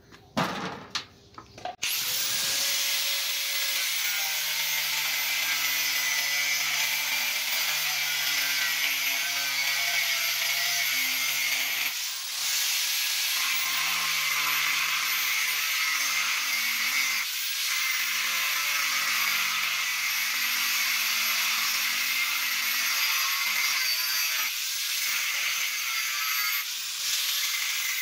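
Angle grinder disc cutting through a steel knife blank: a steady, high-pitched grinding of the disc on metal. It starts about two seconds in after a few sharp clicks and eases off briefly twice as the cut is repositioned.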